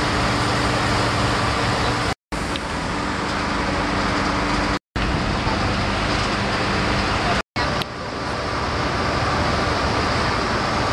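Passenger river boat's engine running steadily, a low hum under a broad, even noise heard on the open deck. The sound cuts out completely for a moment three times.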